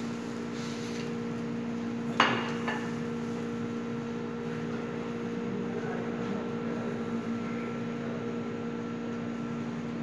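Steady hum of kitchen equipment, with one sharp clatter of kitchenware set down on the counter about two seconds in and a lighter knock just after.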